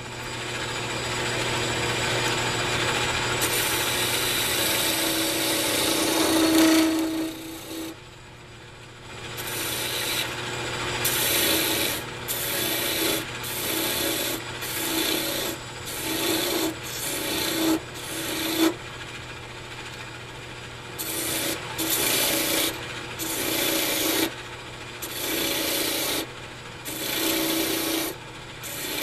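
Lathe turning a cocobolo pen blank on a mandrel, a hand turning tool cutting the spinning wood over the steady hum of the lathe. One long continuous cut runs for the first seven seconds or so, then comes a run of short passes about once a second, with a brief pause a little past halfway.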